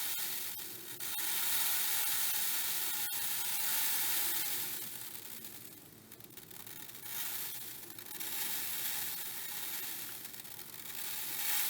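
Masses of tiny plastic beads pouring out of a cut-open squishy stretch toy into a tray, a continuous rushing hiss that swells and eases several times, with a few faint clicks.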